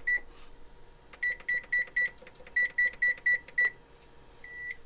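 Electric range's oven control keypad beeping as the timer is set: a single short beep, then runs of quick short beeps about four a second as the button is pressed repeatedly, and one longer beep near the end.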